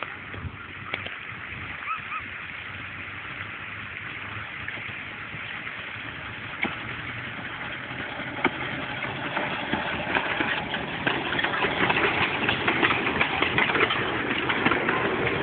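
Narrow-gauge steam locomotive running past close by, its chuffing and the clatter of its wheels on the rails growing louder over the second half as it comes alongside.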